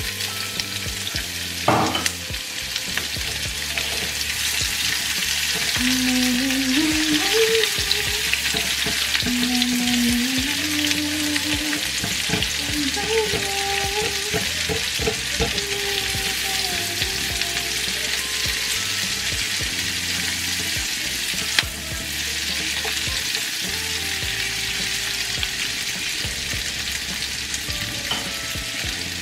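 Sliced white onions frying in butter in a non-stick pan, a steady sizzle as they start to caramelize, stirred with a silicone spatula. Two sharp knocks, one about two seconds in and one about two-thirds of the way through.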